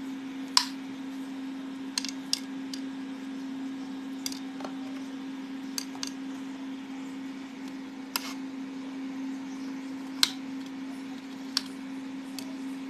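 A small kitchen knife knocks sharply on a wooden cutting board about ten times at uneven intervals as calamansi limes are cut in half. A steady low hum runs underneath.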